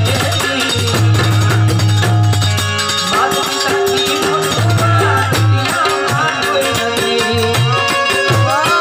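Gujarati folk-song music: a melody of held and gliding notes over sustained low notes, with percussion keeping a steady rhythm.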